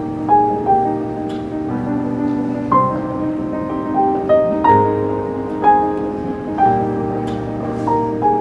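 Slow, gentle background music played on piano, its notes sounding one after another in a calm melody.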